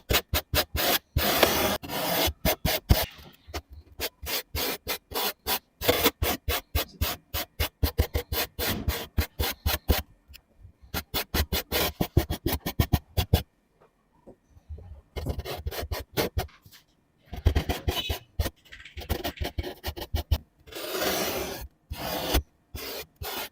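A painting tool scraping and rubbing across a painting surface in quick runs of short, scratchy strokes, with brief pauses between runs.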